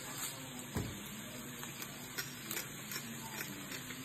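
Salt and pepper grinder being twisted over a skillet, giving scattered short clicks, with one duller knock about a second in, over a steady faint hiss of ground meat and vegetables sizzling in the pan.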